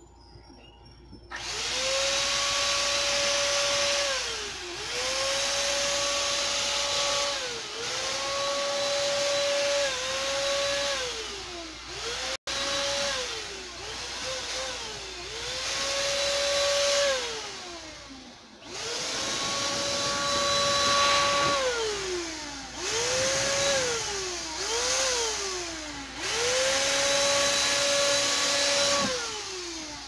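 Electric paint spray gun spraying black paint in about eleven short bursts. Each burst is a motor whine with a hiss of spray that slides down in pitch as the trigger is let go.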